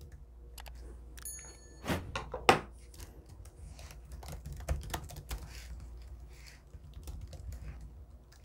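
Typing on a laptop keyboard: irregular key clicks, with two louder knocks about two seconds in and a brief high ring just before them.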